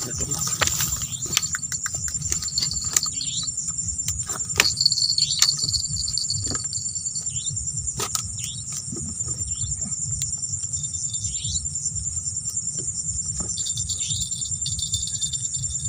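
Steady high-pitched trilling of night insects, with short falling chirps now and then, over scattered clicks and knocks and a low, uneven rumble as the angler handles his tackle.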